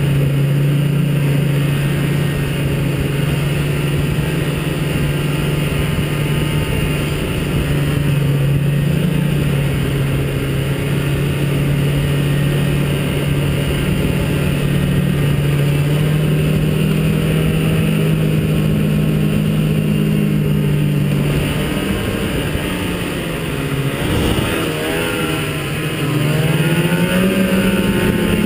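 Ski-Doo Citation SS snowmobile's Rotax twin-cylinder two-stroke engine running at a steady cruising speed. About 22 seconds in the throttle eases off and the engine pitch dips and wavers, then rises again as it picks back up near the end.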